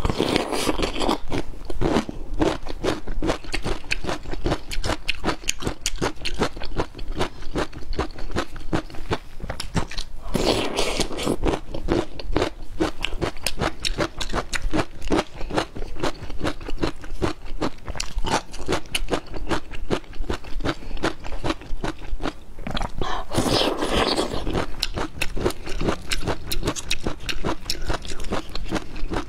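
Close-miked crunching and chewing of spring bamboo shoots, a dense run of crisp crackles from bites and mastication, mixed with the fibrous tearing of shoots peeled apart by hand. Two longer, louder rasping stretches stand out, about ten seconds in and again near the end.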